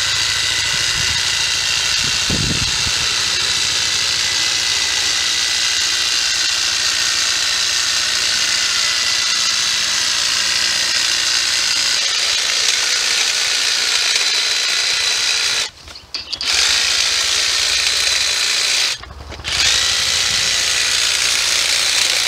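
Makita cordless hedge trimmer running steadily with a high whine as its reciprocating blades trim a hedge. It cuts out briefly twice in the later part as the trigger is let off.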